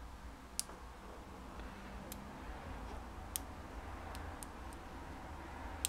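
Small, sharp clicks and ticks at irregular intervals, about seven in all, from fingers handling a BMW ignition trigger plate and unclipping its wire connectors.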